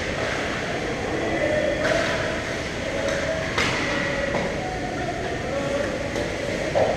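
Ice hockey play on the rink: a steady scraping rumble of skates on the ice, with a few sharp clacks of stick and puck, about two, three and a half and six seconds in.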